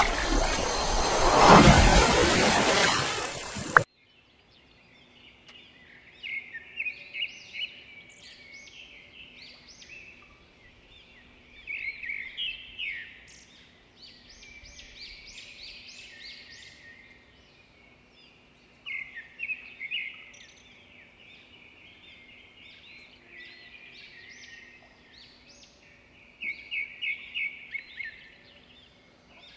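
A loud rushing intro sound that cuts off abruptly about four seconds in, followed by small birds chirping and twittering in quick high runs over a faint steady hum.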